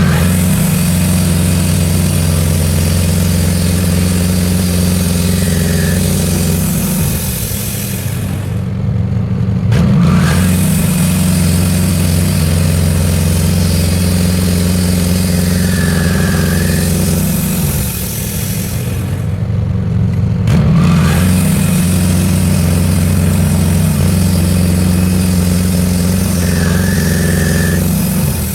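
Wood-Mizer portable bandsaw sawmill running steadily, its band blade sawing through an ash log in repeated 1-inch passes. The cutting hiss drops out briefly twice, between passes, then picks up again with the next cut.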